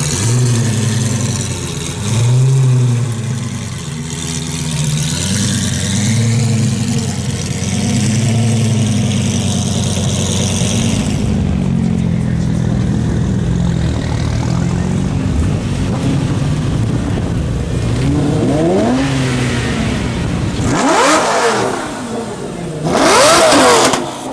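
Lamborghini Gallardo's V10 engine running with repeated short blips of the throttle that rise and fall. Near the end come two sharp revs that climb steeply in pitch, the second the loudest.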